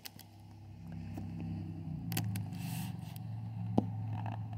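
A car driving past on a wet street: a low engine hum with tyre swish that builds over the first second and stays up for a few seconds, with a brief hiss of spray in the middle. A couple of sharp clicks sound partway through.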